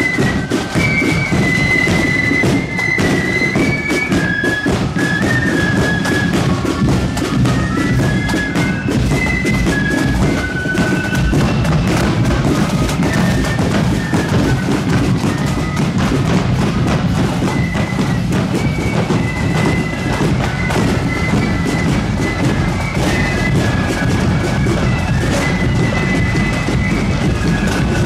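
Marching flute band playing: flutes carry a high, bright melody in unison over steady bass drum and snare drumming.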